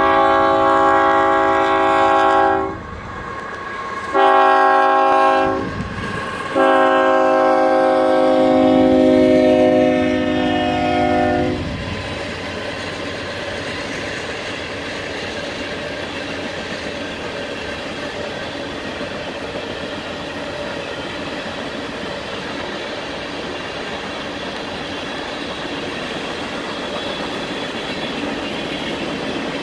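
Union Pacific coal train: the locomotive's horn sounds three blasts, the last held about five seconds. Then the steady rumble and clatter of the coal hopper cars rolling past on the rails.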